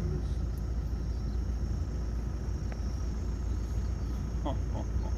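Steady low rumble of a vehicle's engine running, with brief faint voice fragments near the end.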